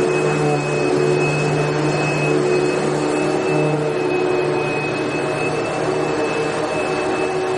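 Vacuum cleaner running steadily: a constant rush of air with a steady motor hum and a high whine, unchanging throughout.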